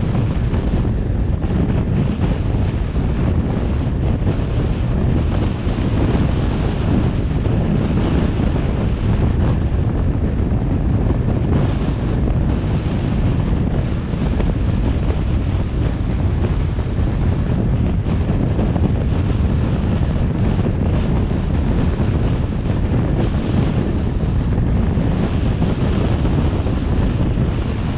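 Steady, loud wind rumble on the microphone of a vehicle driving along a road, with no breaks or sudden events.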